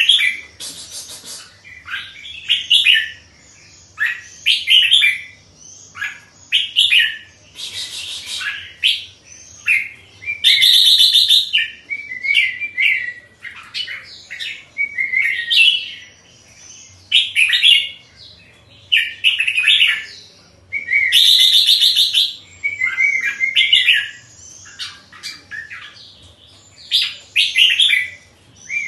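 Red-whiskered bulbul singing in its cage: short, quick phrases repeated every second or two, with three longer, harsher bursts among them.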